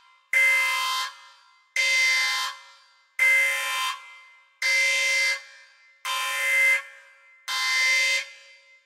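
A steady-pitched, alarm-like tone sounding in six blasts, one about every one and a half seconds. Each blast starts sharply, holds for about half a second, then fades away.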